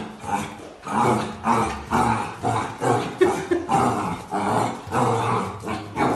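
Puppy barking and growling over and over at its own reflection in a mirror, about two barks a second.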